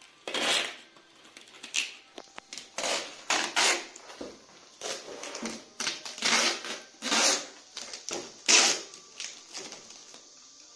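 Clear packing tape being pulled off its roll in about a dozen short, noisy strips and pressed onto a cardboard-and-paper parcel wrapping.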